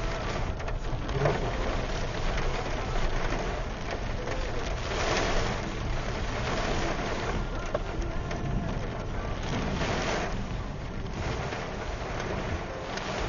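Heavy wind blowing in gusts, with a steady low rumble. The rushing noise swells twice, about five and ten seconds in.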